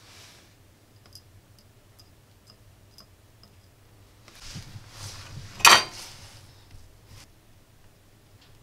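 Light handling noises from hand tools at a soldering bench: a run of faint ticks, then a brief rustle and one sharp click about five and a half seconds in, the loudest sound.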